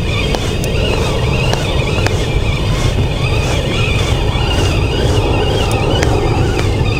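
Background music with a steady beat over a continuous low rumble.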